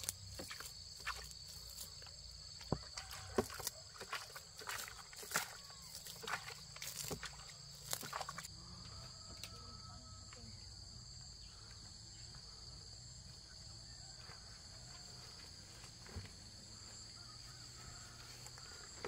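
Insects calling steadily in a high, unbroken drone, with a second high tone above it. Sharp taps and rustles come and go for the first eight seconds, then stop.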